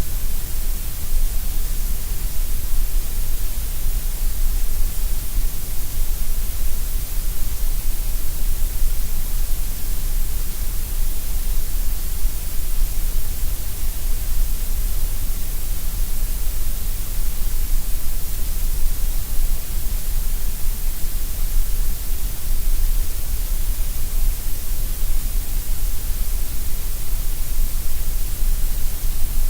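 Gray noise: a steady, unchanging hiss, strongest in the deep lows and the highs with a thinner middle.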